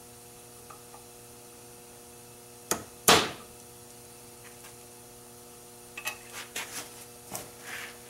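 Two sharp metal-on-metal hammer blows about three seconds in, ringing briefly, as a bolt used as a drift knocks a bronze bushing out of a truck door hinge clamped in a bench vise. Lighter metallic clicks and taps follow near the end as the parts are handled, over a steady hum.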